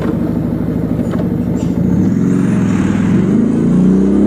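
Motorcycle engine running while riding, under wind and road noise; about three seconds in the engine note rises as it accelerates.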